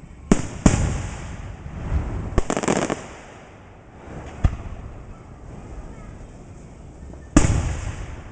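Fireworks going off: a couple of sharp bangs, a crackling burst, another single bang, then the loudest bang near the end with a tail that dies away.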